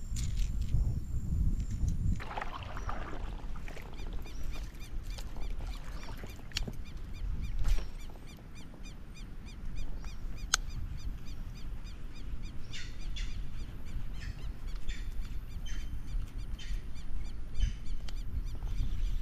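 Small animals chirping: a rapid, evenly repeated series of high chirps runs through, over a low rumble, with a sharp click about ten seconds in.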